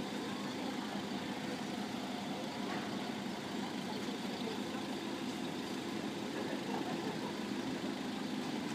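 An engine idling: a steady, even low hum with no change in pitch or level.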